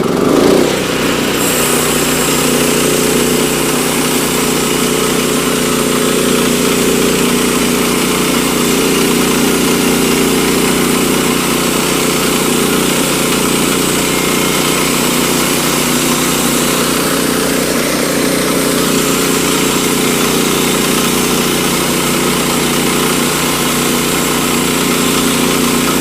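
Woodland Mills HM122 portable band sawmill's gasoline engine running steadily under load as the band blade saws through a jack pine log. A higher hiss joins the engine sound about a second and a half in.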